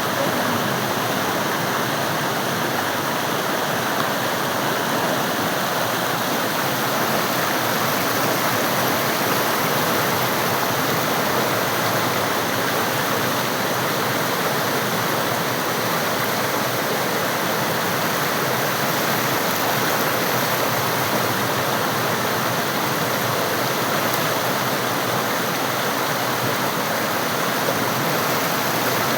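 The Mandakini river's water rushing and splashing in a steady, unbroken stream.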